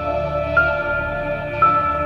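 Slow ambient background music: long held notes over a low sustained bass, the melody moving to a new note about half a second in and again near the end.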